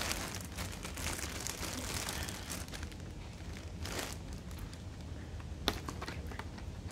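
Plastic wrapping around a packaged throw blanket crinkling and rustling as it is handled, with one sharp click near the end.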